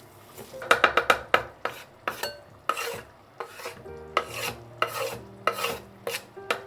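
A kitchen utensil stirring and scraping against a cooking vessel in a series of short strokes: a quick flurry of about four, then a slower, even rhythm of roughly two strokes a second.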